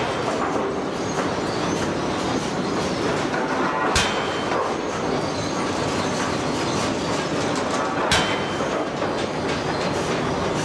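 Air forging hammer running with a steady, loud mechanical din, with two sharp heavy knocks about four seconds apart.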